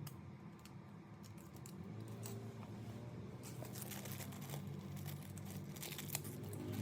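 Small parts being handled: light clicks, ticks and rattles that come thicker from about halfway through, over a low steady hum.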